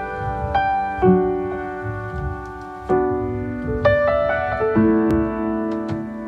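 Solo piano playing a slow, gentle song intro: a new chord is struck every second or so and left to ring out.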